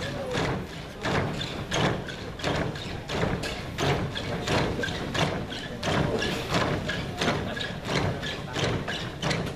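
A group of dancers jumping in unison, their feet landing together on a stage floor in a steady rhythm of thuds about twice a second.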